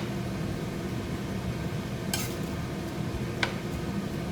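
Vegetables being stirred in a pan, the utensil clicking against the pan twice, about two and three and a half seconds in, over a steady low background hum.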